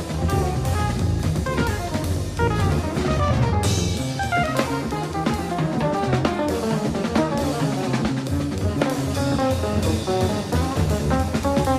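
Jazz guitar trio playing live: a hollow-body electric guitar runs quick single-note lines over upright double bass plucking a moving low line, with a drum kit playing snare, bass drum and cymbals.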